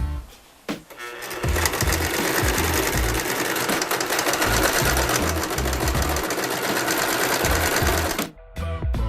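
Sewing machine running steadily, stitching for about seven seconds; it starts about a second in and stops near the end. A music beat plays underneath.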